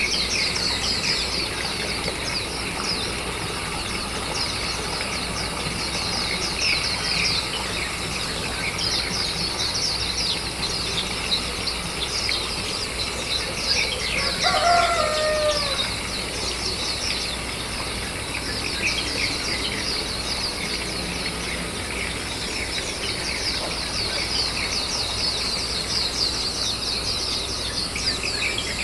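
Continuous high, rapid bird chirping, with a rooster crowing once about halfway through.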